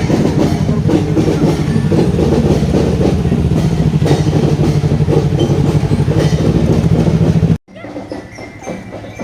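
Marching drum band playing: dense, rapid drumming over a steady low note, which cuts off abruptly about seven and a half seconds in, leaving quieter background voices.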